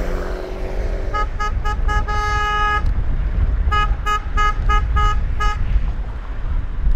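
Car horn honking in a rhythmic pattern: four quick toots and one long blast, then a run of about six short toots, over a steady low rumble.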